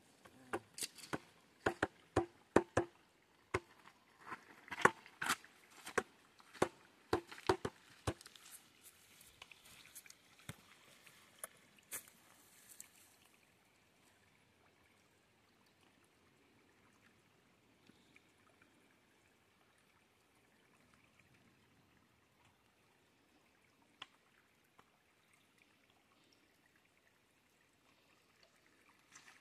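A shallow creek trickling faintly over stones. Sharp clicks and knocks come in quick succession through the first eight seconds or so, then die away and leave only the faint trickle.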